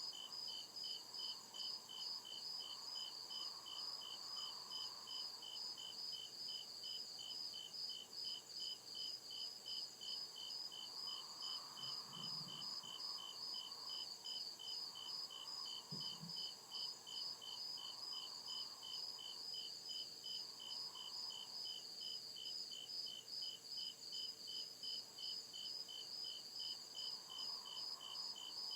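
Crickets chirping in a steady, even rhythm of about three high-pitched chirps a second, unbroken throughout.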